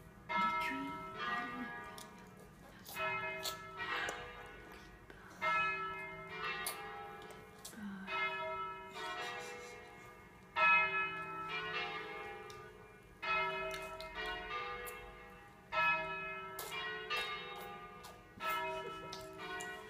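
Several bells ringing in a repeating peal, a fresh round of strokes about every two and a half seconds, each ringing on and dying away.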